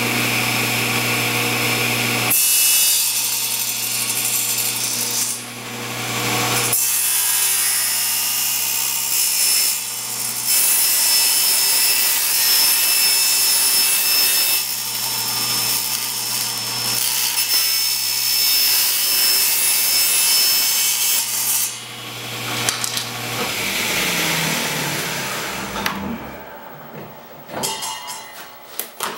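General 350 table saw running, then cutting through a sheet of plexiglass with an old plywood blade: a loud, dense cutting noise from about two seconds in until about twenty-two seconds, dipping briefly twice. The motor is then switched off and the blade winds down with a falling hum. Light rustling and clicking of the plastic pieces follows near the end.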